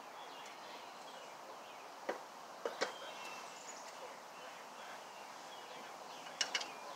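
A few light metallic clicks and knocks of bolts and hands against a mower's new spindle housing and steel deck while the spindle bolts are screwed in by hand: one about two seconds in, two close together near three seconds, and two more near the end.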